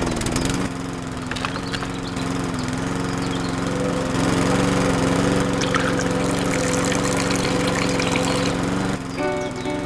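A small motor running steadily with an even hum, a little louder from about four seconds in, stopping shortly before the end.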